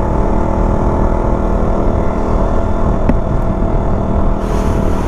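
KTM Duke's single-cylinder engine running at a steady riding speed, with road and wind noise. A sharp click comes about three seconds in, and a hiss rises near the end.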